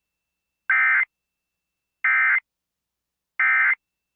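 Emergency Alert System end-of-message signal: three identical short bursts of SAME digital data, about a second apart, marking the close of the test alert.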